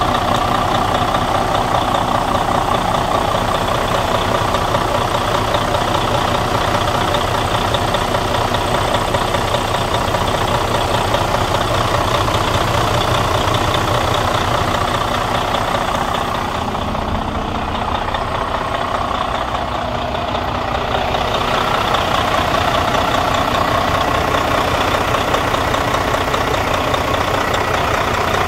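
Detroit DD13 inline-six diesel engine of a 2014 Freightliner Cascadia idling steadily, heard close up in the open engine bay.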